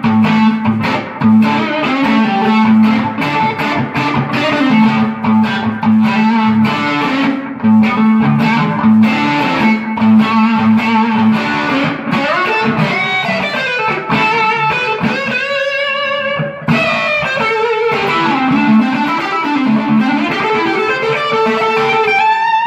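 Electric guitar: a Stratocaster on its neck pickup (position 5), fitted with Jobe hybrid single-coil pickups, played through a Keeley D&M Drive for a little crunch. It plays a blues-rock riff around a repeated low note, then runs and string bends in the second half.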